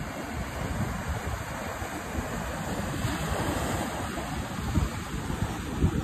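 Sea surf surging and breaking against rocks below a cliff, a steady wash of foaming water, with wind buffeting the microphone in low gusty rumbles.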